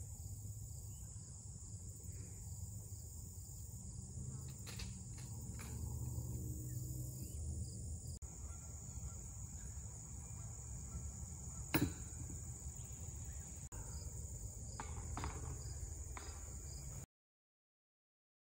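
Steady high-pitched insect chirring, crickets or cicadas, over low outdoor rumble, with a few faint clicks and one sharp knock about twelve seconds in. The sound cuts out near the end.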